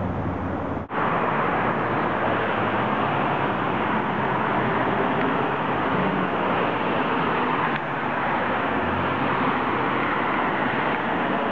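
Steady city street noise, a constant wash of road traffic. It breaks off for an instant about a second in.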